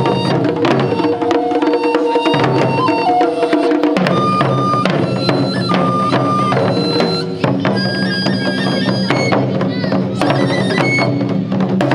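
Japanese taiko drum ensemble playing in a driving rhythm of sharp strikes, with a high wind-instrument melody of long held notes over it.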